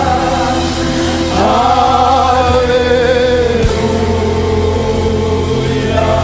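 Gospel worship music: a choir and congregation singing long held notes that slide between pitches over a steady band accompaniment.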